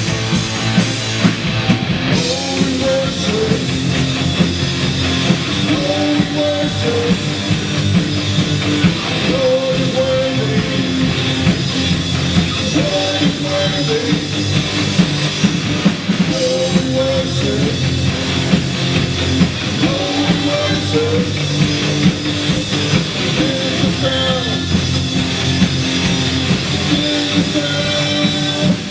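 Christian rock song played by a full band: drum kit keeping a steady beat under electric guitars, with short melodic lead phrases recurring every few seconds.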